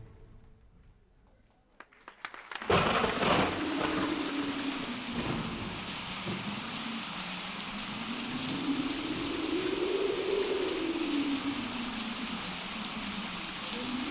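Storm sound effect: a few crackles, then a thunderclap about three seconds in, followed by steady rain with a low howling wind tone that slowly rises and falls.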